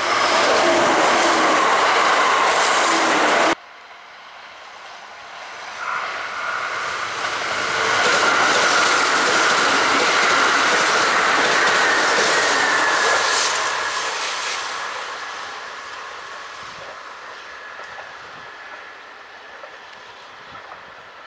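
Kintetsu limited express electric trains passing close by, a loud rolling rush of wheels on rails. The first pass cuts off abruptly a few seconds in. A second train swells up, passes loudly for several seconds, then fades to a low distant rumble.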